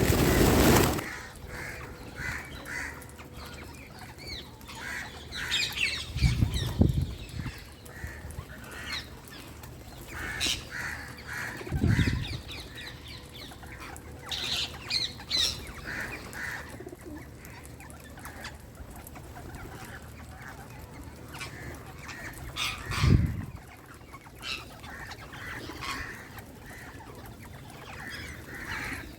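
Wild Indian green parrots chirping in short, repeated calls scattered throughout, with a loud burst of noise at the very start and a few low thuds about six, twelve and twenty-three seconds in.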